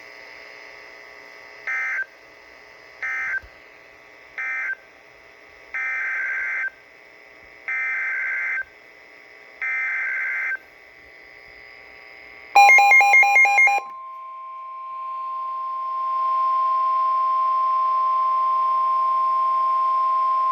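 NOAA Weather Radio SAME data bursts, each a rapid two-tone warble: three short end-of-message bursts, then three longer header bursts announcing a new alert. About twelve seconds in comes a short, loud pulsing beep, followed by the steady single-pitch alert attention tone, which holds for about eight seconds.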